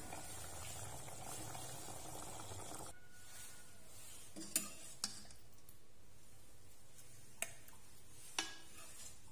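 A serving ladle knocks and clinks against the pot and a ceramic plate four times as braised pork and quail eggs are spooned out. A faint steady hiss during the first three seconds stops suddenly.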